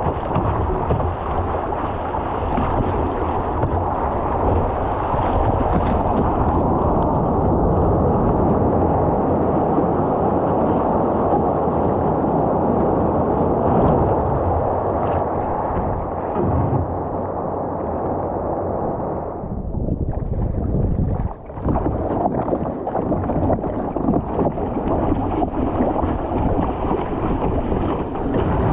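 Rushing and splashing seawater around a surfski's hull and over its deck-mounted camera as it is paddled through breaking surf, with wind on the microphone. The sound goes briefly muffled about two-thirds of the way through.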